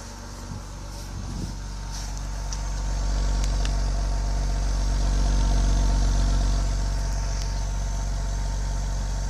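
BMW E46 320i's straight-six engine idling after a hard cold start, its spark plugs freshly dried after they had been wetted; the sound grows louder about three seconds in, then settles slightly.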